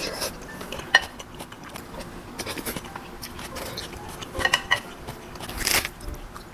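Wooden chopsticks and a wooden spoon clicking against a ceramic bowl, with a sharp click about a second in and two ringing clinks close together about four and a half seconds in as the utensils are laid in the bowl. Close-up eating sounds run in between.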